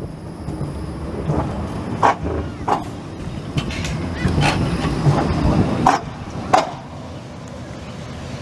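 Pöstlingbergbahn narrow-gauge tram running past close by: a low rumble with a run of sharp, ringing clacks from the wheels on the track. It fades to a quieter rumble near the end.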